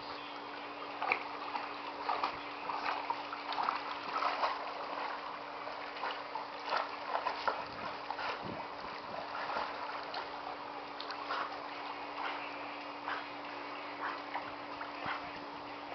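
A dog paddling through a swimming pool, making irregular small splashes and lapping water, over a steady low hum.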